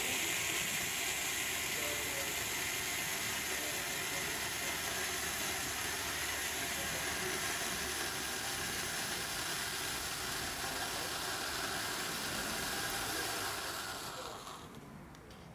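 Blackboxx purple Bengal light burning with a steady hiss, which fades away near the end as the flare burns out.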